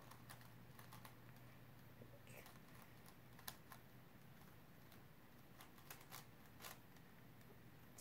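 Faint, scattered clicks of a Rubik's cube's layers being turned by hand, irregularly spaced, a few per few seconds.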